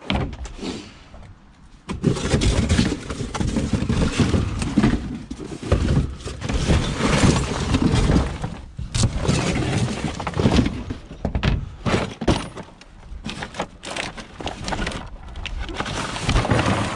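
Irregular clattering and knocking of hard objects, starting about two seconds in and running on densely.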